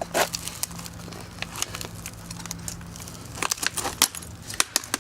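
Irregular cracking and clicking of a laptop's plastic casing and hinges being wrenched and pried apart as the screen comes off.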